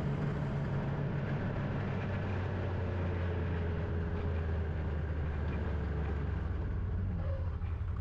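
Snowmobile engine running steadily under way, its pitch dropping a little about seven seconds in as it eases off.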